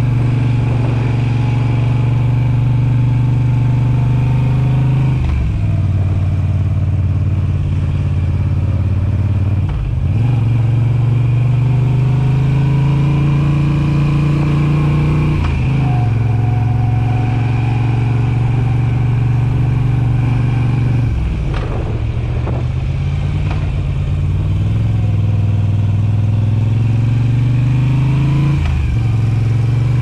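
2021 Moto Guzzi V7 850's air-cooled transverse V-twin running through Mistral short exhaust silencers as the bike is ridden. The note cuts back sharply and settles at a new pitch about five times.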